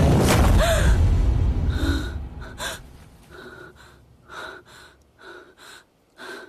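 A deep dramatic boom closes the background music and fades over the first two seconds, then a woman gasps and breathes hard in short, ragged breaths, about one or two a second: the frightened breathing of someone jolted awake from a nightmare.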